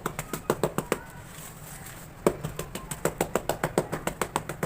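Sharp tapping on hard cement cakes. A quick run of taps comes first, then a pause of about a second, then a steadier run of about five taps a second.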